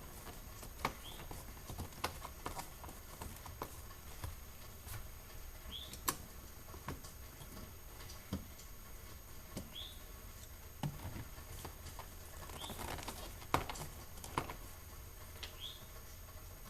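Scattered light clicks and taps of a screwdriver and plastic door trim as a screw is taken out from under the door handle of a car door panel, with short faint chirps every few seconds.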